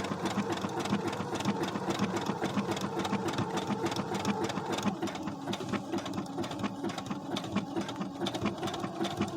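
Brother SQ9285 sewing machine running steadily, sewing a solid embroidery stitch with a fast, even needle rhythm.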